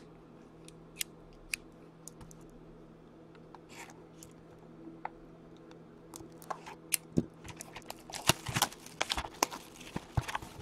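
A sealed box of hockey trading cards being opened by hand. A few sharp clicks come in the first couple of seconds, then cardboard and foil card packs rustle and crinkle, growing denser over the last few seconds.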